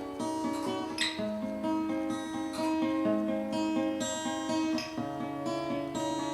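Acoustic guitar playing slow strummed chords, the chord changing about a second in and again near five seconds in.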